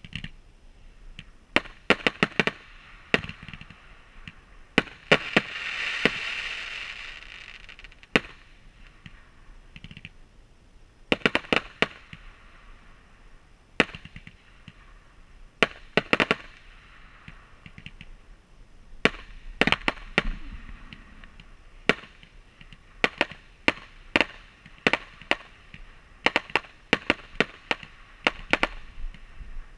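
Fireworks going off: a long run of sharp bangs from launches and aerial bursts, often in quick strings of several, with a hissing swell about six seconds in.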